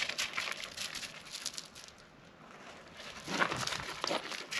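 Rustling and crinkling with many light ticks as the handlebars are handled and lined up on the stem, pausing briefly halfway, then a louder rustle near the end.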